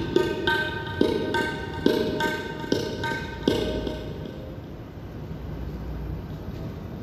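Music with rhythmic drum strokes, about two a second, each ringing with a held pitch. The strokes stop about three and a half seconds in, leaving a quieter steady background.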